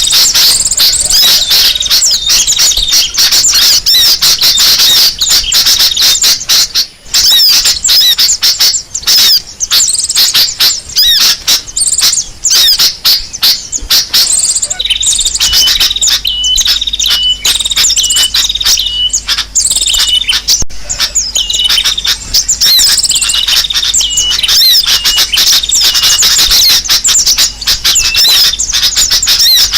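Loud, dense chatter of many small birds chirping and twittering at once: a bird-lure (pikat) recording meant to draw birds in. About halfway through, a short note repeated again and again stands out over the chatter.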